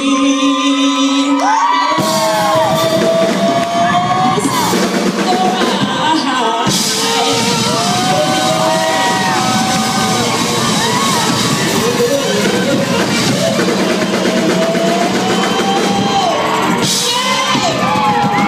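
Live band playing with a woman singing into a microphone over drums and electric guitar; the full band with drums and cymbals comes in about two seconds in. The crowd yells along.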